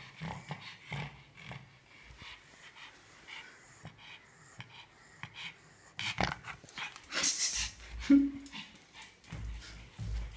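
A pug panting, with scattered knocks and rustles that grow louder from about six seconds in.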